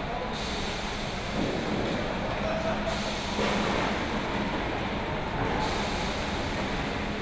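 Steady din of a car assembly line: machinery noise with a low, even hum underneath. A high hiss cuts in and out twice.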